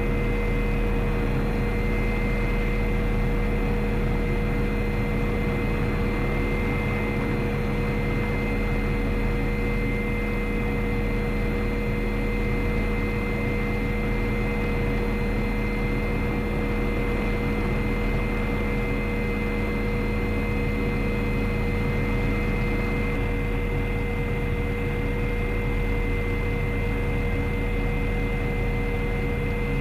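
MD-530F helicopter's turbine engine running steadily, heard from inside the cockpit: a constant whine and high whistle over a low rumble. The highest thin whistle drops away about three quarters of the way through.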